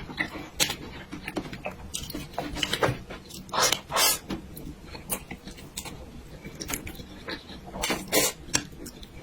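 Close-miked eating sounds: irregular wet chewing and mouth clicks, with a few longer louder bursts about three and a half to four seconds in and again near the end.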